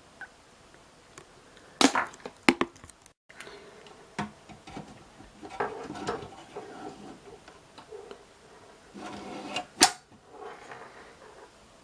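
Hands handling a hard drive and its plastic packaging: rustling with sharp clicks and knocks, a cluster about two seconds in and a single loud one near ten seconds.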